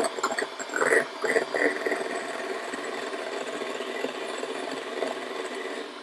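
Kenwood electric hand mixer running steadily, its beaters whisking egg whites that are whipped nearly to firm meringue in a glass bowl.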